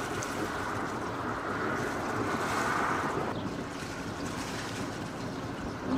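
Sailboat under engine moving along a canal, a steady running noise mixed with wind on the microphone; the wind eases a little about halfway through.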